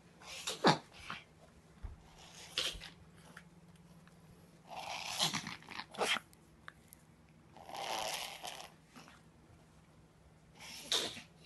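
A dog reverse sneezing in a severe episode: repeated forceful inhalations through the nose, coming in about five separate spells.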